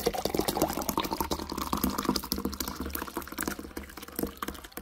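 Fresh fruit juice poured in a thick stream into a stainless steel pot, splashing and frothing. The pitch rises as the pot fills, and the pour eases off near the end.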